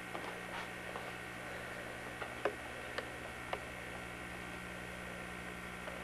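Quiet room tone: a steady electrical hum and hiss, with a few faint ticks about halfway through.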